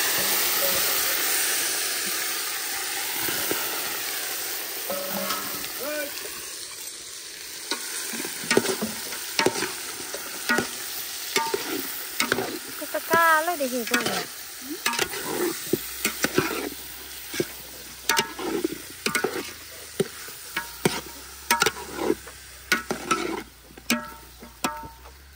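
Chicken bhutuwa frying in a pan: a loud sizzle at first that dies down over the first few seconds, then quick stirring and scraping strokes against the pan, with a short squeak about halfway through.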